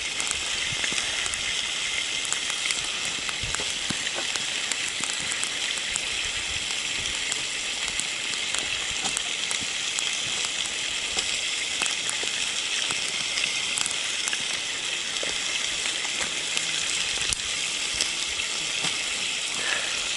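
Trout sizzling as they fry in a pan over a small wood-burning stove, a steady hiss with scattered small clicks.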